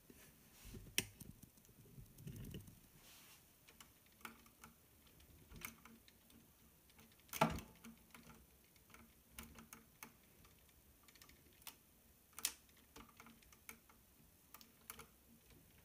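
Plastic LEGO Technic parts clicking and tapping as the arm of a tracked drilling model is moved by hand: scattered light clicks, the loudest about seven and a half seconds in.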